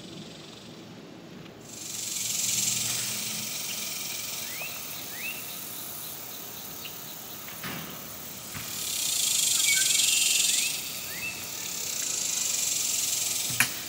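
Insect chorus, a high hiss that swells and fades in long waves, with a few short rising chirps. A sharp click near the end.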